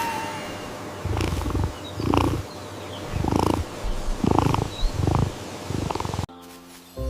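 A run of about six short cat-like vocal sounds, roughly a second apart.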